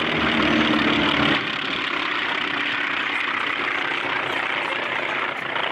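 Two North American T-28 Trojans' radial piston engines and propellers in a flypast: a steady engine hum with a clear tone for about the first second and a half, then a broad, even drone.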